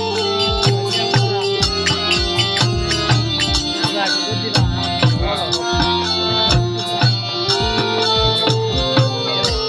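Recorded dance music with a steady drum beat and a sustained melody, played over outdoor horn loudspeakers.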